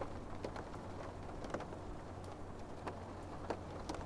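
Scattered raindrops ticking at irregular intervals, over a steady low hum.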